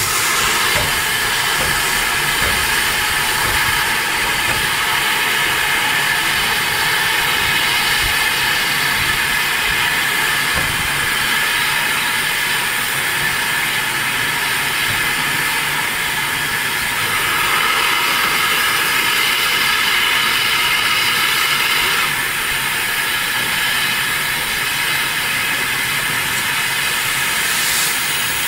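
Steam hissing steadily and loudly from LMS Jubilee Class 4-6-0 steam locomotive no. 45690 'Leander' as it stands with steam pouring out around its cylinders. The hiss grows stronger for a few seconds past the middle.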